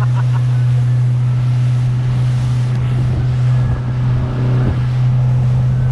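Boat engine running steadily under way: a constant low drone with an even rushing noise over it.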